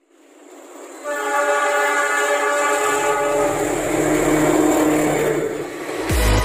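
KAI diesel locomotive sounding its multi-tone air horn in one long blast starting about a second in, then its engine running and the train's wheels on the rails as it approaches. Music with a beat takes over near the end.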